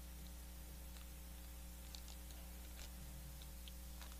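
Quiet room tone through the hall's microphone and sound system: a steady electrical hum with a few faint, scattered clicks.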